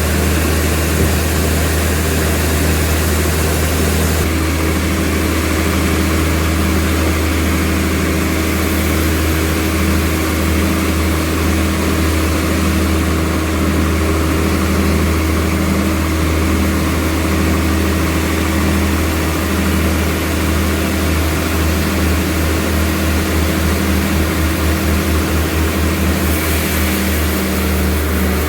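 Sawmill machine running with a steady, loud low hum. A steady higher tone joins about four seconds in and stops a couple of seconds before the end.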